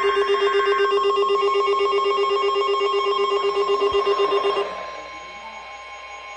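Emergency alert attention tone announcing a severe thunderstorm warning: a loud, rapidly pulsing ringing tone that cuts off about four and a half seconds in. It gives way to a quieter, wavering tone.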